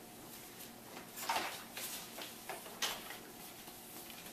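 Footsteps and handling noise as a person moves about a kitchen: a few brief knocks and scuffs, the loudest about a second in and again near three seconds.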